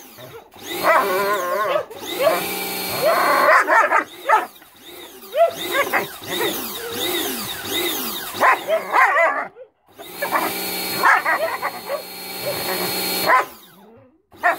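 German Shepherd dog barking and whining excitedly at a water spray, many short yips and whines. A pressure washer's motor and spray hiss come on in two spells behind the dog.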